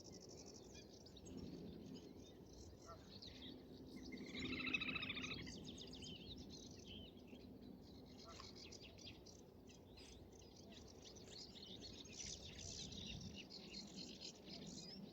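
Several small birds singing at once in quick, overlapping high chirps and trills, faint, with one louder call about four to five seconds in.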